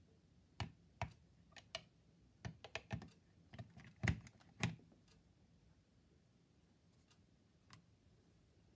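A quick run of sharp plastic clicks and knocks as an Ambi Pur 3volution plug-in air freshener is pushed into a wall socket and pressed into place, the loudest knock about four seconds in, with one faint click later.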